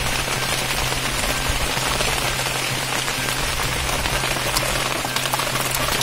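Steady rain pattering on plastic tarpaulins, with many small drop ticks in an even hiss.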